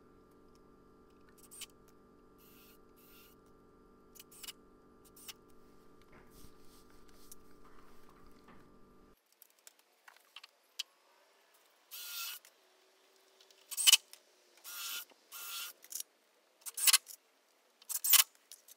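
A faint steady hum cuts off suddenly about halfway through. Then come about six short, sharp clatters and scrapes roughly a second apart as wooden blocks and tools are handled and set in place.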